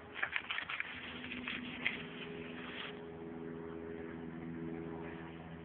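Dry leaf litter rustling and crackling in quick bursts for the first three seconds, over a steady low hum.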